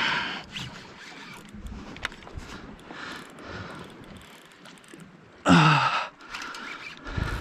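Heavy spinning reel working under load during a bluefin tuna fight: mechanical reel sounds, with two short loud bursts, one at the start and another about five and a half seconds in.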